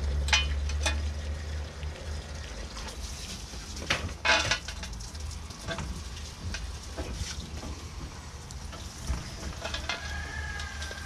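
Goat eating at a milk stand close to the microphone: crackly munching and rustling of feed with scattered small clicks, and a louder rustle about four seconds in, over a low steady rumble.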